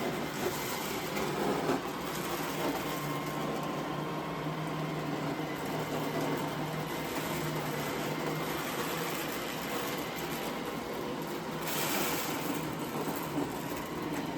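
Two Roomba robot vacuums, an S9 and an i2, running together: a steady motor whir with a low hum as they pick up scattered plastic pellets and confetti.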